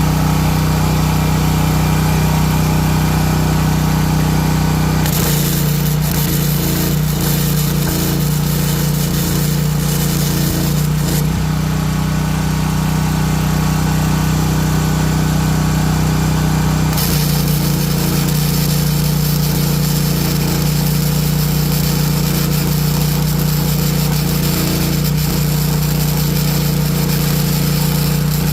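Propane-fuelled portable generator engine running steadily, with the crackling of a welding arc joining in about five seconds in as the broken tractor part is welded.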